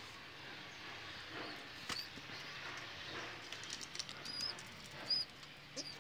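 Birds in a pigeon loft: short, high chirps, several of them in the second half, over faint rustling with a few light clicks.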